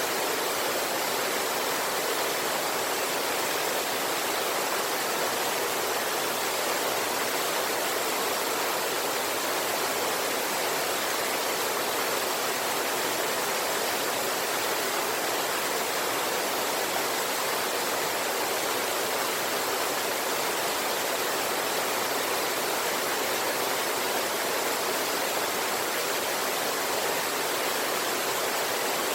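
A river with a waterfall: water rushing and falling in a steady, unbroken hiss with little deep rumble.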